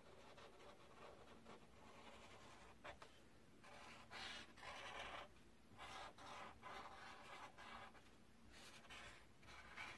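Faint scratchy strokes of a felt-tip marker drawing on paper, coming in short and longer runs with brief pauses between them.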